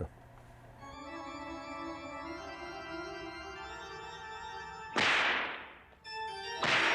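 Organ music playing sustained chords. Two loud bursts of hissing noise cut across it, about five seconds in and again near the end.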